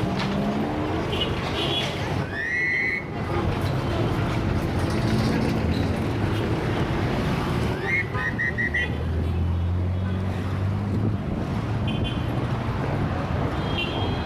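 Heavy city traffic: a steady wash of engines and tyres. A short rising squeal comes about two seconds in, a quick run of high beeps near eight seconds, and a deep engine drone sets in about nine seconds in.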